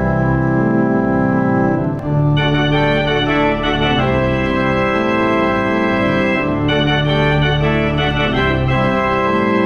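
Church pipe organ playing slow, held chords that change every second or two.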